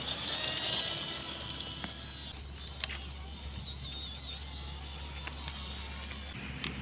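Electric motor and gears of a 1/12-scale MN99S RC crawler whining as it drives over dirt. The whine rises in the first second, then holds fairly steady with a slight waver, with a few small clicks.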